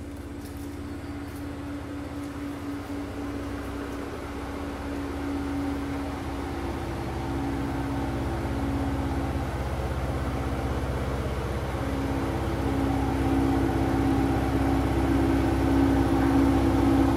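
Next-gen Ford Ranger Raptor's 3.0-litre twin-turbo V6 running at low speed as the truck drives slowly in. It is a steady engine drone that grows gradually louder as the truck comes closer.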